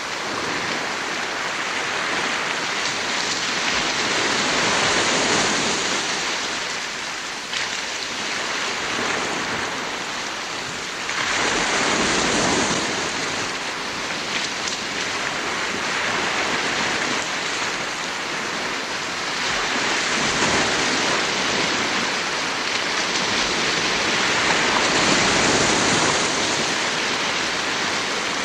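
Rushing water sound that swells and fades every several seconds.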